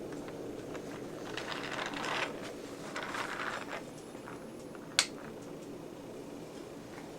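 Toy trains being handled: two short stretches of soft clattering, then a single sharp click about five seconds in, over a steady low room hum.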